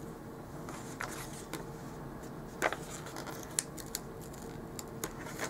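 Paper stickers and a sticker sheet being handled on a planner page: light paper rustling with a scatter of small clicks and taps, one louder tap about two and a half seconds in.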